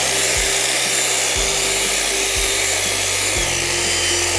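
Angle grinder fitted with a diamond core bit, cutting a hole into a concrete slab with a steady, loud grinding whine. A music bed with a bass line plays under it.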